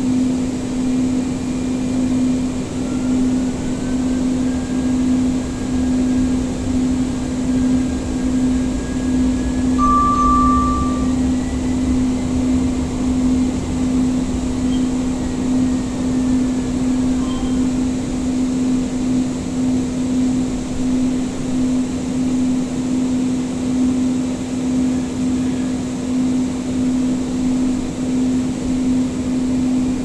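Interior running sound of a Siemens S200 light rail vehicle: a steady hum over low rolling rumble, with the Siemens IGBT-VVVF traction drive giving a faint whine that rises in pitch as the car accelerates, holds, then falls away. A short beep sounds once, about ten seconds in.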